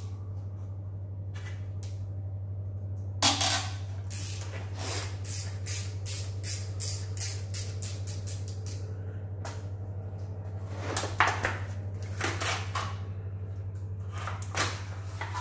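Hand ratchet wrench clicking in quick, even strokes of about three clicks a second for several seconds, then in a few shorter runs, as bolts are backed out. A sharp clank of metal tools comes just before the first run of clicks.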